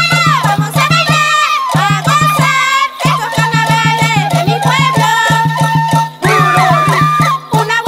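Andean carnival folk music: a fast, steady drumbeat under a high, wavering melody.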